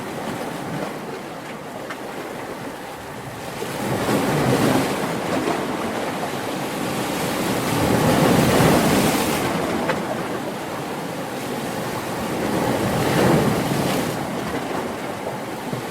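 Ocean surf: three waves swell and wash in about four to five seconds apart, over a steady hiss of water, the middle one the loudest.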